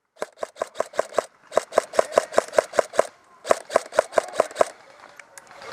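Airsoft gun firing three rapid strings of shots, about five a second, each shot a sharp clack with a short ring, with brief pauses between the strings.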